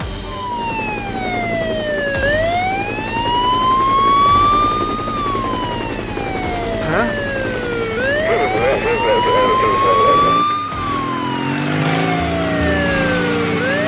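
Police siren wailing, its pitch sweeping slowly down and back up about once every six seconds.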